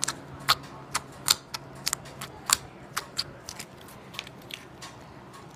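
Purple glitter putty slime being poked by hand, giving an irregular series of small, sharp clicks and pops, a few each second.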